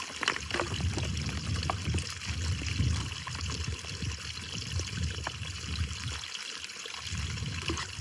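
Water trickling, with gusts of wind buffeting the microphone in low rumbles that come and go.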